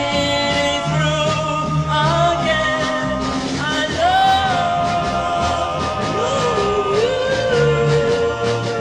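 Early-1960s vocal-group rock and roll record: voices holding long, wavering notes over a band with a repeating bass line, with one long held note starting about four seconds in.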